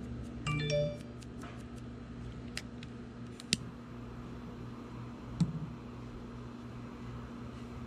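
Scattered sharp clicks of a small silver cigar lighter being worked, the two loudest about three and a half and five and a half seconds in. A brief pitched sound comes just before the clicks, about half a second in.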